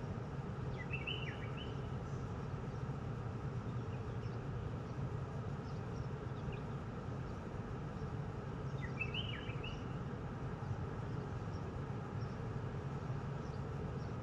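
Steady low outdoor background hum, with a short burst of bird chirps twice: about a second in and again about nine seconds in.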